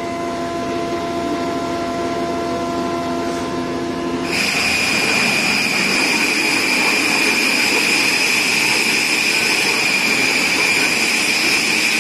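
Motor-driven rotary oil mills pressing copra into coconut oil, running with a steady machine hum. About four seconds in the sound turns louder, a steady high whine over grinding noise.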